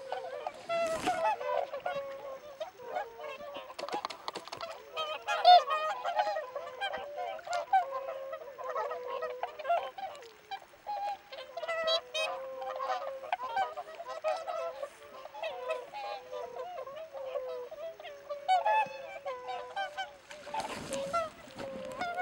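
A flock of whooper swans calling all the time, many honking calls overlapping one another. A brief rushing noise comes about a second in and another near the end.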